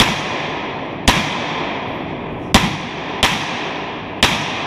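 Five 9mm pistol shots from a Glock, unevenly spaced about a second apart, each trailing a long echo off the walls of an indoor range.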